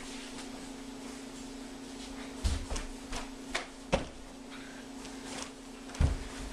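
Dull thumps of a person landing on a cushioned couch and getting off it, three in all, over a steady low hum.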